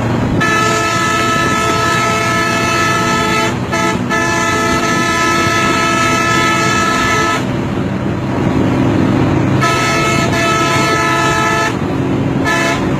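Bus horn sounding in long, steady blasts, almost unbroken for about seven seconds, then another two-second blast after a pause and a short toot near the end. The bus's engine and road noise run underneath.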